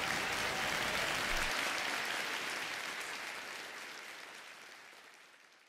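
Applause, a dense clapping that fades away steadily over about five seconds after an award is announced.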